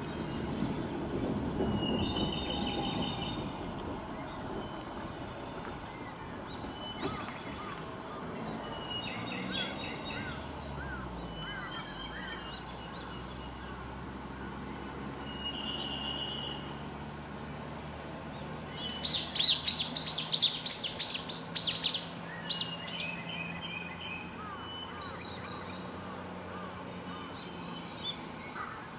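Several wild birds calling and singing in short phrases, with a loud, rapid series of sharp high notes lasting about three seconds starting around 19 seconds in. A low rumble sounds in the first few seconds, and a faint steady low hum runs under the later part.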